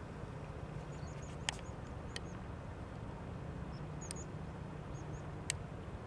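Asian house martins giving short, faint, high chirping calls now and then, over a steady low rumble. A few sharp clicks stand out, the loudest about a second and a half in and again near the end.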